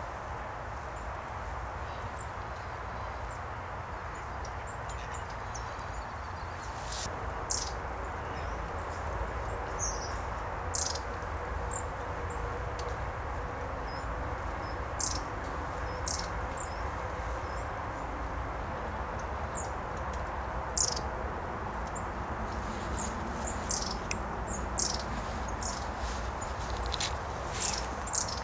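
Long-tailed tits calling: short, thin, very high notes scattered throughout and coming thicker near the end, over a steady low background rumble.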